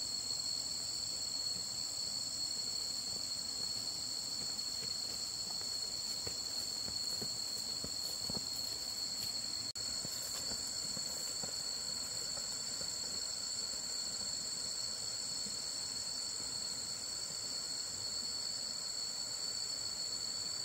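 Steady, high-pitched drone of insects calling in chorus, holding one pitch without a break.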